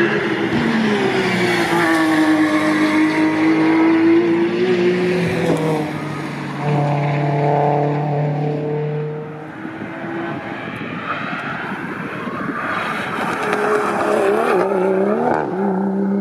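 Race cars driving past on a circuit at speed, their engines revving and changing pitch as they pass and shift gears. A new engine note comes in about six seconds in, and near the end the note wavers up and down quickly.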